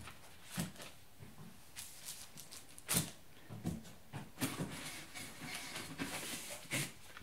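Paper and cardboard packaging being handled: irregular rustling and light bumps as documents are set down and a hand rummages inside an open monitor carton, with one sharper knock about three seconds in.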